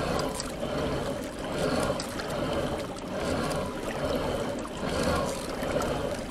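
Water trickling and rushing along the hull of a pedal-driven fishing kayak under way, the level swelling and easing about once a second.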